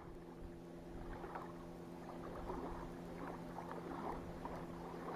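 Steady low hum of a distant motor, holding a few constant tones, with irregular splashy water sounds over it.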